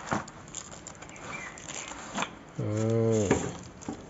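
Cardboard box being torn open and the plastic wrap around a gas spring crinkling: a run of crackles and short rips. About two and a half seconds in, a held voice-like call lasting under a second is the loudest sound.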